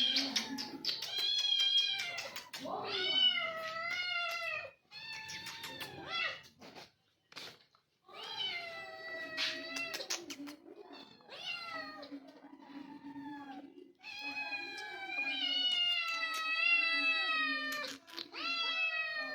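Domestic cats meowing over and over, long drawn-out calls that sometimes overlap, with a short lull about seven seconds in: cats crying for milk.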